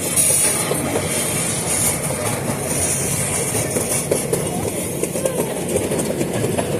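Passenger train running slowly along the track, heard from on board: a steady rumble and rattle with frequent small clicks and knocks from the wheels and cars.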